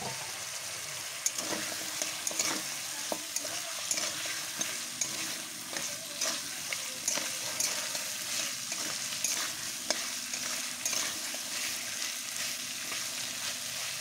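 Goat meat curry sizzling in a pan while a spatula stirs and scrapes it: a steady frying hiss with frequent short scraping strokes against the pan. The thick masala has begun to catch on the bottom.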